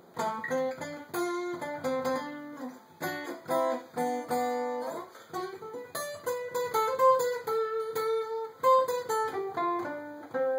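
Guitar being played by hand: plucked chords and single notes, with a note sliding upward about five seconds in.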